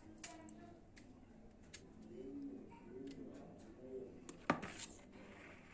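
A dove cooing softly in a run of low, rounded coos. A sharp metal clink sounds about four and a half seconds in, the steel ladle knocking against the bowl or tray as batter is poured into paper cupcake liners.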